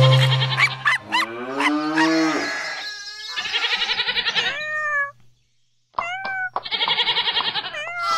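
Cartoon cow mooing in one long call, followed by a kitten meowing a few times. Background music fades out about a second in.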